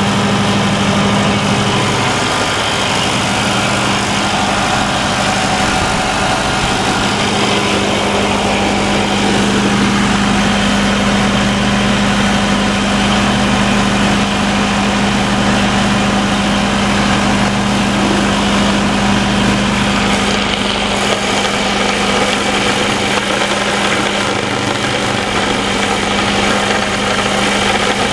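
Perkins diesel generator set running steadily, with a strong, even hum.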